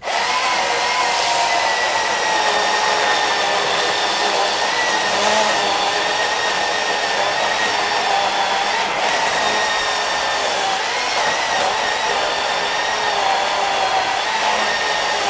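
Small electric chainsaw starting suddenly and running with a steady high whine as it cuts into a chunk of wood.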